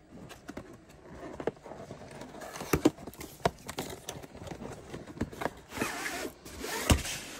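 Plastic shrink wrap being torn and crinkled off a cardboard box, then the box opened and a rolled canvas pulled out: handling rustles and scattered clicks, with a sharp knock near the end.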